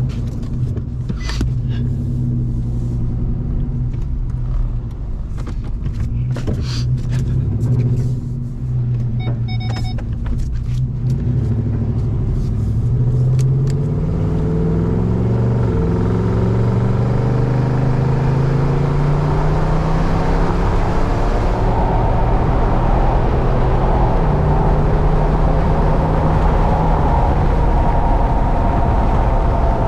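Pickup truck's engine and road noise heard from inside the cab as it drives and gathers speed, the engine pitch climbing in steps over the first half. Tyre and wind noise grow louder after about twenty seconds. Several knocks and rattles in the cab in the first ten seconds, and a short beep about nine seconds in.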